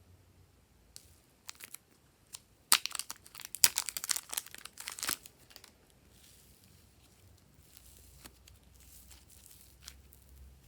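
Slime worked by hand, giving a dense run of sharp crackling, popping clicks for about two and a half seconds, with a few scattered clicks before it and faint squishing after.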